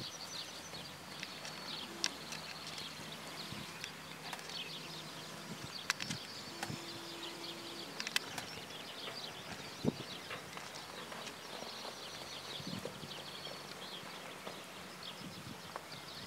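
Quiet outdoor paddock ambience: songbirds chirping in the background and a few hoof thuds from horses walking and trotting on the ground.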